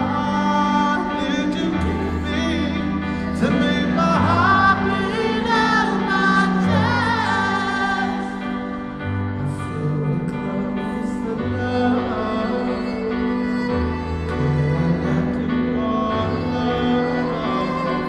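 Live band music with a male vocalist singing into a handheld microphone over long held bass notes. The voice is most prominent in the first half, with gliding, held sung lines.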